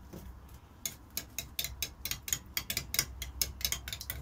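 A metal teaspoon stirring tomato sauce in a glass tumbler and clinking against the glass in a quick, uneven run of light ticks, several a second, starting about a second in.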